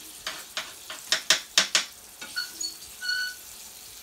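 Turkey chops frying in oil in a nonstick pan: a steady sizzle broken by a run of sharp pops and crackles in the first half, then a couple of brief high squeaky tones.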